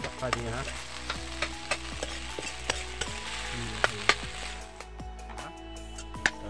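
Diced potato sizzling in oil in a steel kadai while a metal spoon stirs and scrapes it, with sharp clinks of the spoon against the pan every second or so.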